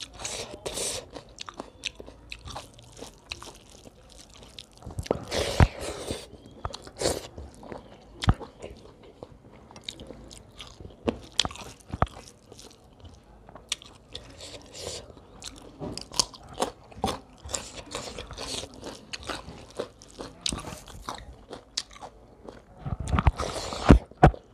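Close-miked chewing of a rice and fish curry meal eaten by hand, with many small irregular mouth and finger clicks. It gets louder about five seconds in and again near the end.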